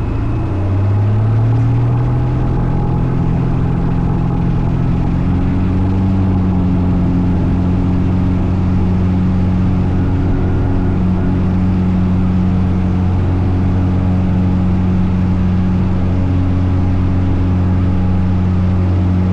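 Cessna light aircraft's piston engine and propeller running, rising in pitch and loudness about a second in, then holding a steady drone.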